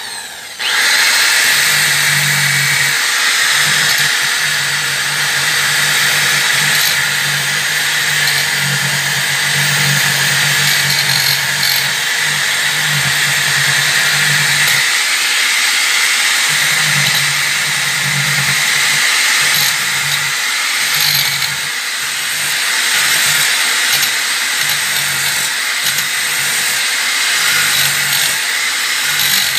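Small corded electric drill (about 2,800 RPM) spinning an abrasive disc against a block of hard wood: a steady motor whine with the rasp of the disc on the wood, starting up just after the beginning. A low motor hum comes and goes throughout.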